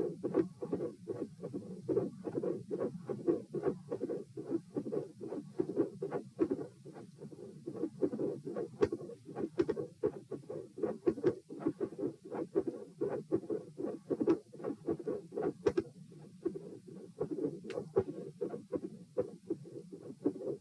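Recorded human heart sounds: a steady run of lub-dub beats at about 80 to 90 beats a minute. Sharp, high-pitched clicks stand out now and then, mostly in the second half.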